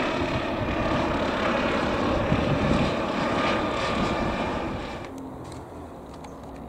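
A low-flying aircraft passing close overhead, a loud, even rushing engine noise. It fades away about five seconds in, leaving quieter outdoor background with a few faint bird chirps.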